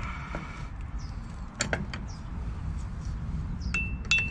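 Steel rear drum-brake hardware (shoes, springs and adjuster parts) clicking and clinking as it is pushed into place by hand on the backing plate. A couple of clicks come about a second and a half in, and two more near the end, the last with a short metallic ring.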